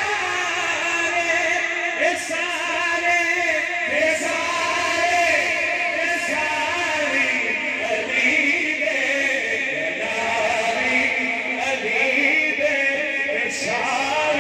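Several men singing a Punjabi naat together into microphones, their voices amplified, with long drawn-out melodic lines.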